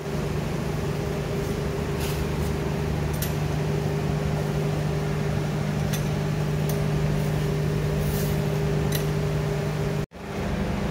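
Steady low mechanical hum with a constant drone, broken by a few faint clicks and a brief drop-out about ten seconds in.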